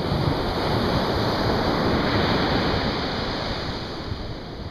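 Ocean surf breaking and washing up a sandy beach, swelling over the first few seconds and easing off near the end.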